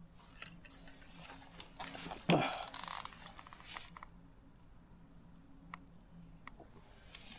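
A thud about two seconds in, followed by a couple of seconds of close rustling and crinkling as things are handled. Later come a few sharp ticks and brief, very high chirps from a small bird.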